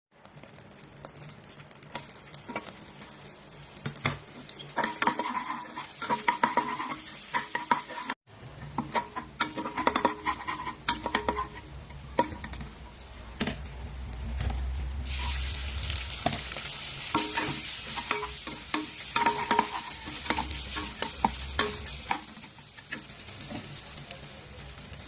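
A utensil stirring, clinking and scraping against cookware, with short ringing knocks. About halfway through, hot oil begins sizzling steadily as shrimp fry, and the stirring knocks continue over it.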